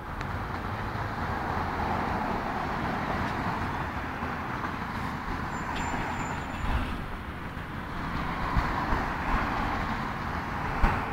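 Road traffic noise: passing cars' tyre and engine noise swelling and fading.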